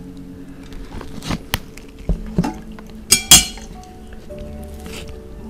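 Plates and serving utensils clinking and tapping during a meal: a string of short sharp clicks, the loudest a little past three seconds in, over soft background music with held notes.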